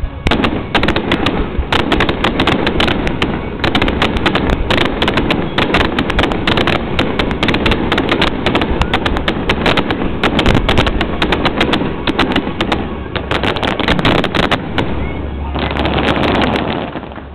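Fireworks barrage: aerial shells bursting in rapid succession, several sharp bangs a second, for about fifteen seconds before stopping shortly before the end.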